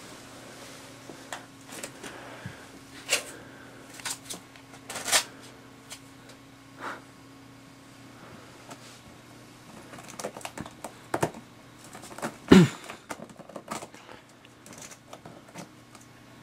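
Small plastic toys knocking and clattering in a plastic toy bin as a ferret rummages through it: scattered, irregular knocks, the loudest about three-quarters of the way through with a brief falling squeak.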